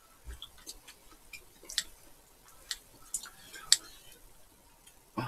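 Quiet, scattered sharp clicks of metal serving tongs and kitchen scissors handling and snipping chewy glass noodles in a pan of braised chicken.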